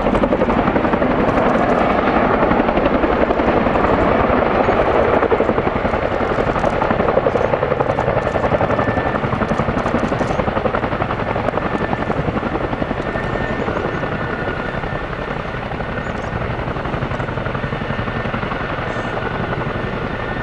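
CH-47 Chinook tandem-rotor helicopter descending and touching down close by: fast, steady rotor chop with engine noise. It is loudest in the first few seconds and eases gradually as the helicopter settles, with a faint high whine joining about nine seconds in.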